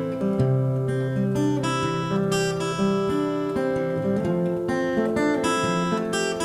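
Background music: acoustic guitar strumming and picking chords, an instrumental passage before the vocals come in.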